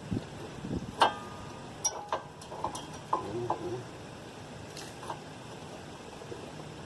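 Brake pad's metal backing plate clicking into the caliper bracket on a test fit after its ears were filed. There is a sharp metallic clack with a brief ring about a second in, then several lighter clicks and taps over the next couple of seconds. The pad is still a tight fit at the bottom.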